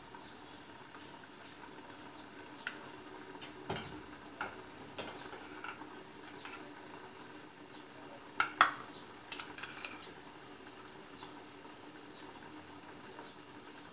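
A spoon clinking against a bowl as chilli sauce is spooned out: scattered light clinks, the loudest two close together about eight and a half seconds in, over a faint steady hum.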